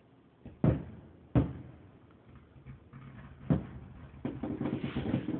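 Three firework booms, each a sharp thud with a short decaying rumble, spaced about a second and two seconds apart. A denser, continuous run of sound follows from about four seconds in.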